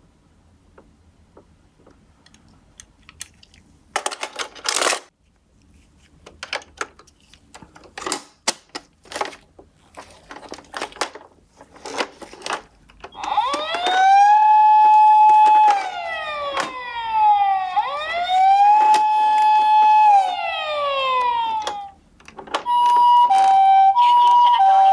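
Clicks and a short rattle of plastic toy cars being handled, then a toy ambulance's electronic siren: a wail that rises, holds and falls twice, followed by a two-tone hi-lo siren.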